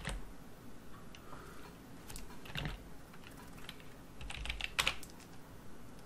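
Typing on a computer keyboard: scattered single keystrokes and short runs of clicks, the busiest run about four and a half seconds in.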